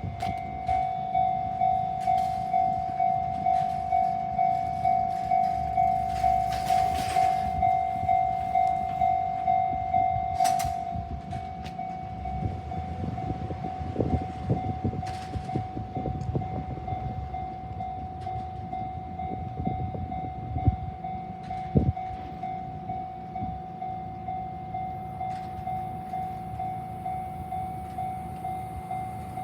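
Japanese level-crossing warning bell ringing a steady, high, repeated tone about twice a second. It becomes quieter about ten seconds in. A train then rumbles through the crossing with a run of wheel clacks over the rail joints, two sharper knocks near the end of its pass, while the bell keeps ringing.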